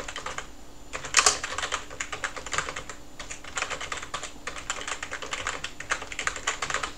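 Typing on a computer keyboard, quick runs of keystrokes with short pauses between them.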